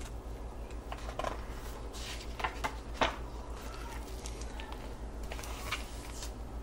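Pages of a large hardcover picture book being opened and turned: a few short rustles and flaps, the sharpest about three seconds in, over a steady low hum.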